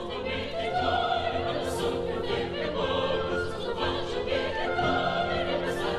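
Operatic singing: a classical voice with vibrato over held instrumental accompaniment.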